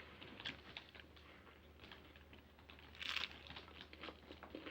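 Faint crunchy chewing of a taco in a hard Doritos shell: scattered small crunches and mouth clicks, with a brief louder rustle about three seconds in.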